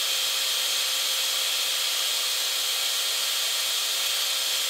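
A steady, even high-pitched hiss that does not change in level.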